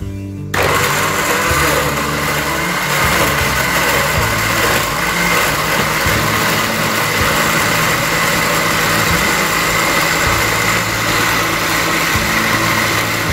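Electric countertop blender switched on about half a second in and running steadily at full speed with a high motor whine, grinding dry crayfish and yellow pepper into a wet paste.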